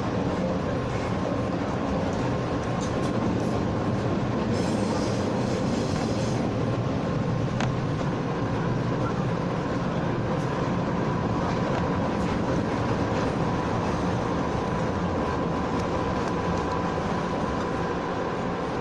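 JR West 117 series electric train running along the track, heard as a steady rumble of wheels on rail with a thin steady tone and a short high hiss about five seconds in.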